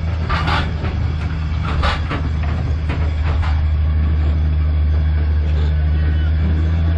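Open-air people-mover tram running along: a steady low drone from the moving tram, with a few short noises over the first three seconds.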